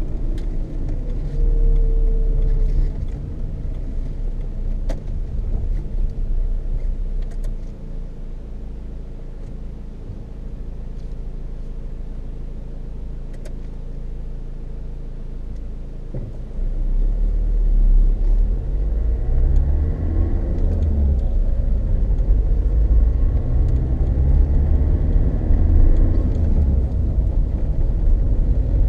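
Tyre and road noise heard inside the cabin of a Peugeot 306 2.0 HDi on the move: a loud low rumble from two-year-old Dunlop Sport BluResponse tyres, which the owner suspects comes from tread wear. It drops noticeably for several seconds in the middle, then comes back louder.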